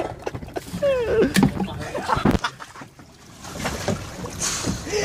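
Sea water splashing and lapping against the side of a small boat as a swimmer moves at the hull. There is a single knock on the hull about two seconds in and a short vocal sound about a second in.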